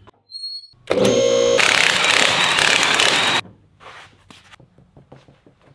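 Cordless impact wrench spinning up and hammering a wheel's lug nut tight for about two and a half seconds, then stopping. Faint clicks and handling noises follow.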